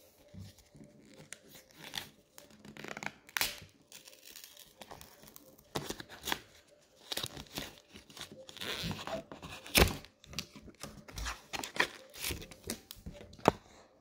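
Foil wrapper of a Pokémon TCG Brilliant Stars booster pack being torn open and crinkled by hand: a run of sharp crackling tears, with the loudest snaps about ten seconds in and near the end.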